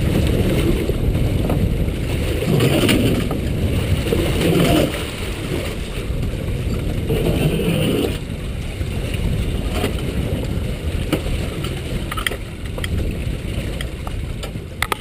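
Wind rumbling on the microphone and sea water sloshing against a small boat's hull. There are a few light knocks near the end.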